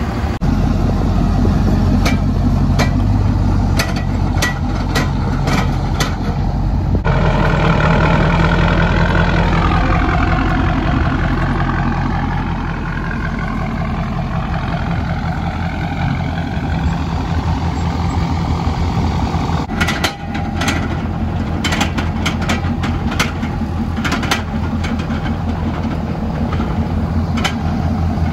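Pickup truck engine running steadily, its pitch sliding down about ten seconds in, with bursts of sharp clicks and knocks a couple of seconds in and again about twenty seconds in.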